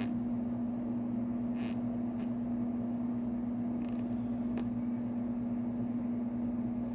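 Steady mechanical hum holding one low tone, over faint background noise, with a few faint ticks.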